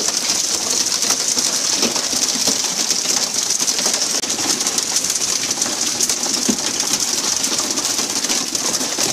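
Steady hiss of water spray and splashing along the hull of a pole-and-line tuna boat, with a low uneven rumble underneath.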